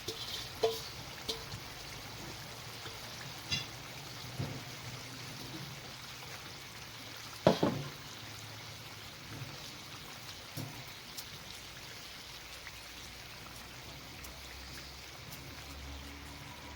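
Plov cooking in a kazan: a steady hiss of food sizzling or simmering in the pot, with a few scattered knocks, the loudest about seven and a half seconds in.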